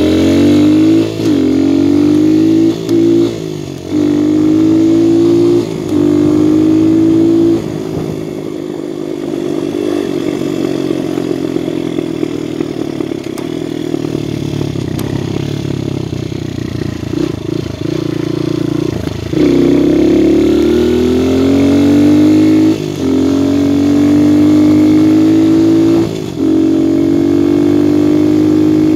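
Viper 150cc dirt bike engine pulling through the gears: its pitch climbs and drops back at each upshift, with short dips in loudness between gears. In the middle it runs on lighter, uneven throttle, then it accelerates up through the gears again and holds a steady cruise near the end.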